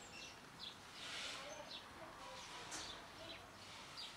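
Small birds chirping faintly: short, high calls scattered irregularly, several a second at times, over a low outdoor background hum.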